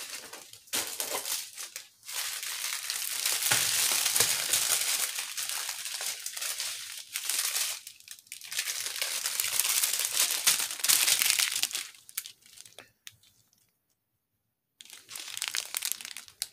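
Clear plastic bags crinkling and rustling as small packets of diamond-painting drills are handled and pulled out of a larger plastic bag, in irregular spells with short pauses. The rustling stops for about a second near the end.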